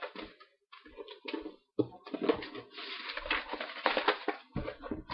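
Paper packaging rustling and crinkling as items are handled and lifted out of a cardboard box, with a few sharp light knocks; the rustling becomes denser and steadier about halfway through.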